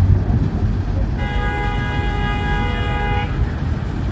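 Traffic rumble with a vehicle horn sounding one steady blast of about two seconds, starting about a second in.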